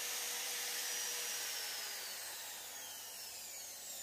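Corded electric drill being released about a second in and winding down, its whine falling slowly in pitch. Under it runs a steady hiss from the small hot-air gun's blower.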